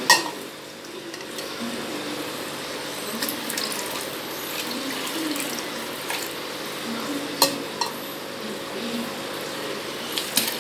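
Water running steadily, with a sharp knock at the start and another about seven seconds in, plus a few small clicks of plastic and glass being handled.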